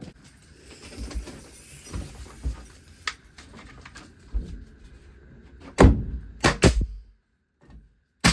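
Workshop handling noises of lumber and tools: light shuffling and small knocks, then three loud knocks in quick succession about six seconds in, and a sharp click at the very end.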